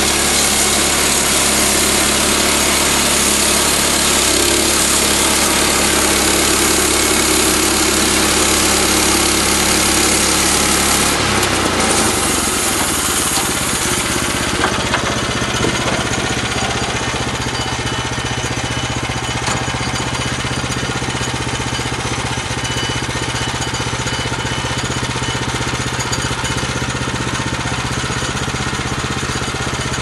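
Woodland Mills HM126 bandsaw mill cutting a maple log, its 9.5 hp Kohler single-cylinder engine running steadily under a loud hiss from the band blade in the wood. About halfway through, the hiss drops away as the blade comes out of the cut, and the engine runs on steadily.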